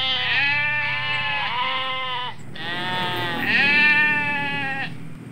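Goat kid bleating: two long, wavering calls back to back, the second a little louder.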